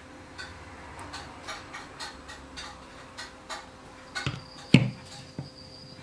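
Light, irregular clicks and taps, two or three a second, from kitchen utensils against a stainless-steel saucepan as golden syrup is poured in. A heavier knock comes about three-quarters of the way through.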